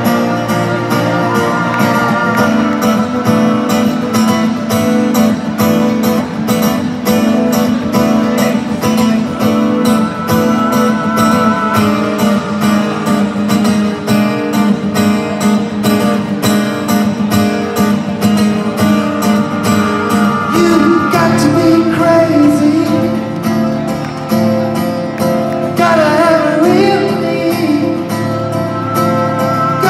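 Live rock band playing in an arena: strummed acoustic guitar and sustained band chords, with a lead vocal coming in about twenty seconds in, recorded from the audience stands.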